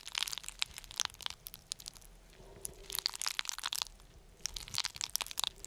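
Crackling and crinkling of takeout food packaging being handled, in irregular clusters of sharp clicks with short pauses between.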